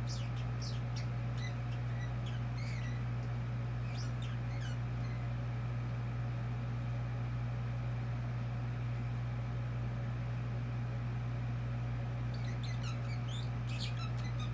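Pet budgerigar chattering in quick high chirps and clicks for the first few seconds, going quiet, then starting again near the end. A steady low hum runs underneath.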